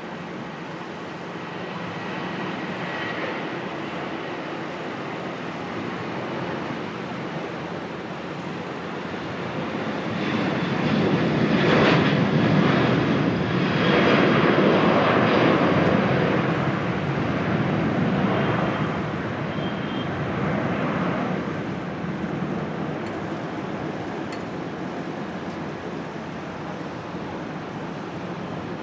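Jet airliner's engines swelling to a loud peak about twelve to sixteen seconds in, then slowly fading as the aircraft passes.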